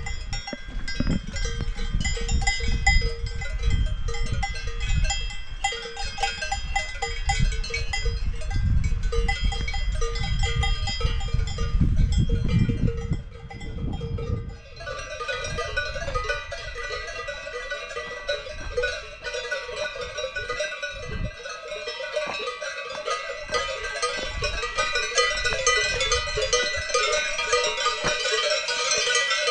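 Many Swiss cowbells on grazing cows clanking and ringing irregularly at several different pitches. A low rumble sits under them in the first half and stops about halfway, after which the bells ring denser and louder.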